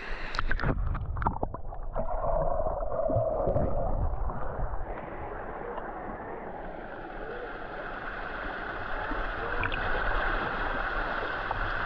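Water sloshing and splashing around a camera held at the surface of a swimming pool, with sharp splashes in the first two seconds. From about halfway a small waterfall's steady splashing rush comes in and grows louder toward the end.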